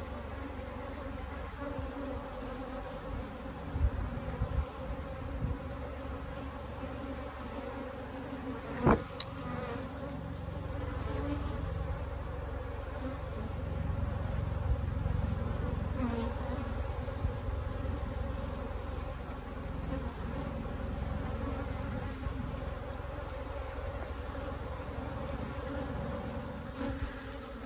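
A large colony of Africanized honeybees buzzing steadily around an opened hive. A few knocks come about four to five seconds in, and one sharp click about nine seconds in stands out as the loudest sound.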